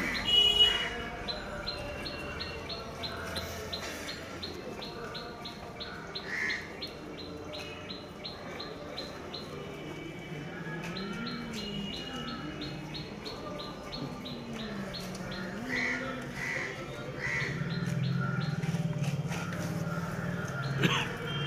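Birds chirping in the trees: a high, rapid series of short repeated chirps, about five a second, with a few louder calls between them, over a faint low murmur of voices.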